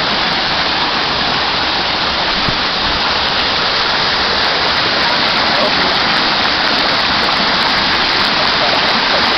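Waterfall rushing steadily: a loud, even wash of falling water that stays constant throughout.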